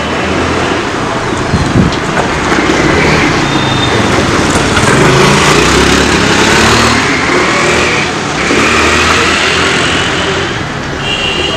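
A car driving past close by, its engine and tyre noise swelling to its loudest about halfway through and then easing off.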